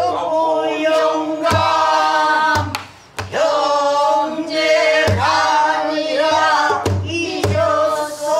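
Pansori singing: one voice holds long notes with a wavering, shaking pitch. A buk barrel drum struck with a stick keeps the rhythm, with about seven low strokes at uneven spacing.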